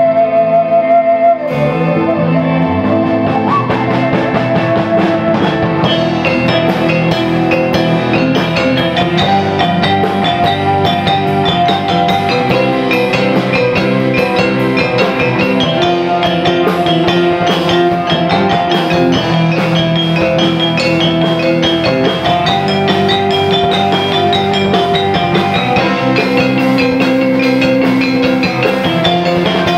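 Gamelan-fusion ensemble playing: a bamboo flute holds a note, then about a second and a half in the full band comes in, with bronze-keyed saron struck with wooden mallets over drum kit, bass guitar and keyboard keeping a steady beat.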